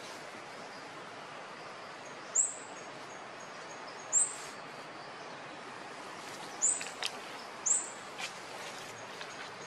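A bird calling four times, short, high chirps spaced a second or two apart, over a steady outdoor hiss of background noise.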